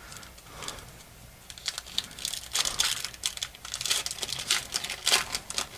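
A 2014 Allen & Ginter card pack wrapper being torn open and crinkled by hand: a run of short crackles and rips starting about a second and a half in.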